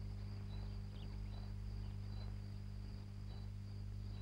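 Steady low electrical mains hum, with faint short high chirps recurring about every half second to second.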